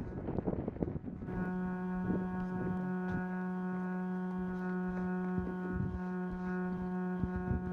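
A steady horn tone starts about a second in and holds without changing pitch, with scattered knocks and clicks under it.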